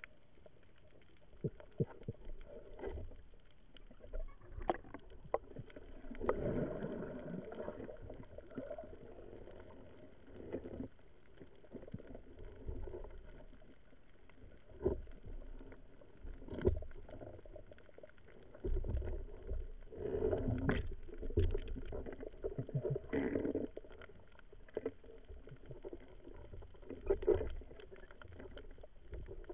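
Underwater sound through a camera housing: muffled water wash and rumble that swells and fades as the diver moves, with scattered sharp clicks and knocks.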